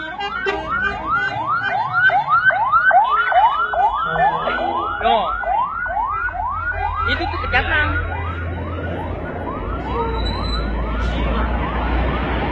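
Bus 'telolet' musical air horn sounding a rapid, repeating siren-like whoop, about two to three rising-and-falling glides a second. It fades after about eight seconds as a low engine and traffic rumble grows.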